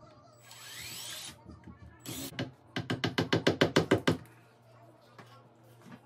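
A hammer tapping a plastic wall anchor into a drilled hole in the wall: a few scattered knocks, then a fast run of about a dozen light knocks, around eight a second, in the middle.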